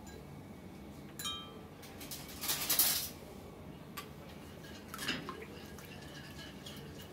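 Spoon clinking and scraping against a pan while stirring milk heating on a gas stove: a ringing clink about a second in, a louder scrape around the middle, then a few light taps.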